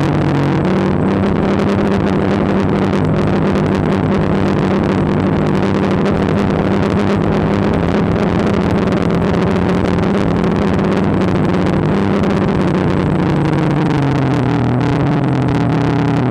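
DJI Phantom quadcopter's electric motors and propellers whirring in flight, heard from the camera mounted on the drone, a steady hum over rushing noise. The pitch dips and wavers near the end as the throttle changes.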